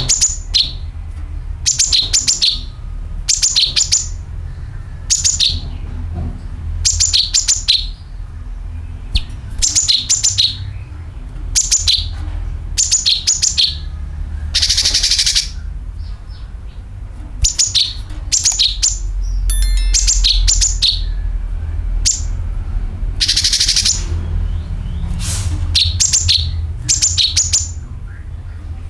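Cucak kinoi calling: clusters of sharp, high chirps repeated every second or two, broken twice by a longer harsh, buzzing rattle, the dragging "nyeret" call. A steady low rumble runs underneath.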